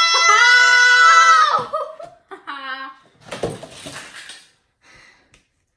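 A girl's long, high-pitched shout of "no", held for about a second and a half, then a shorter cry and a breathy burst of noise before it goes quiet.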